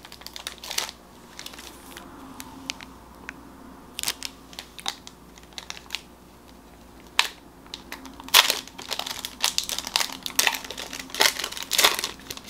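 Trading-card pack wrapper being opened and handled: scattered sharp crinkles and crackles, thickest about eight to twelve seconds in.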